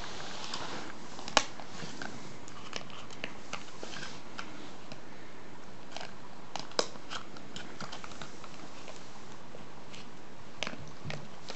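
Staffordshire bull terrier puppy gnawing a dried pork aorta chew: a run of small crunching clicks, with two sharper cracks about a second and a half in and again near the middle.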